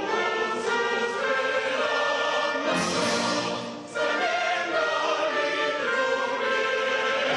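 Choir singing with a symphony orchestra in sustained chords; the music dips briefly about four seconds in before the next phrase begins.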